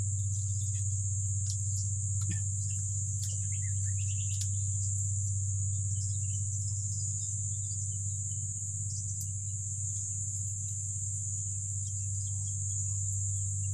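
Steady high-pitched drone of insects, with scattered faint clicks and snaps and a steady low hum underneath.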